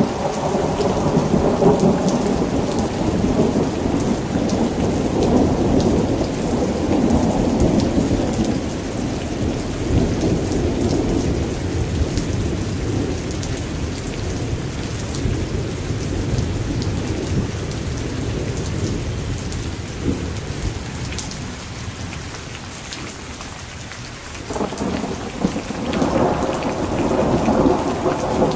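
Steady rain with many fine drop ticks, under rolling thunder. The long rumble fades away past the middle, then a new peal starts suddenly near the end and swells.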